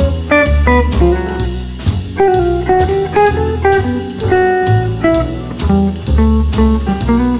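Background music: a guitar-led, plucked-string melody over a steady, pulsing bass beat.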